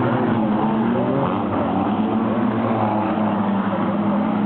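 Wingless sprint car engines racing at high revs, several at once, their pitches rising and falling as the cars circle the track, with one car passing close by.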